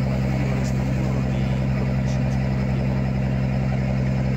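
Boat's engine running steadily under way, a constant low drone with a hiss of wind and water above it.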